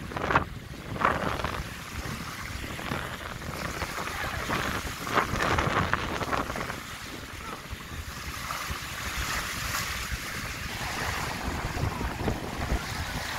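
Small sea waves washing and breaking on a sandy shore, with wind buffeting the microphone as a low rumble. Louder rushes of water come about half a second in and again about five seconds in.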